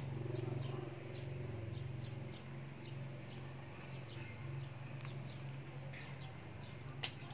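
Small birds chirping repeatedly in short falling notes over a steady low hum, with one sharp click near the end.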